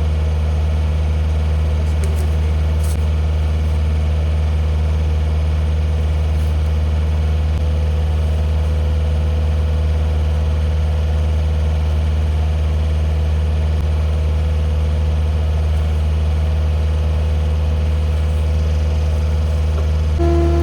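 A machine's engine idling steadily with a low, even hum. Near the end, a higher steady whine joins it and the sound gets slightly louder.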